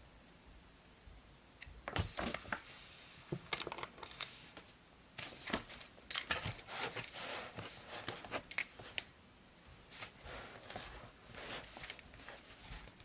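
Paper and stationery being handled on a desk: a run of small clicks, taps and crinkly rustles that starts about two seconds in, pauses briefly past the middle, then resumes.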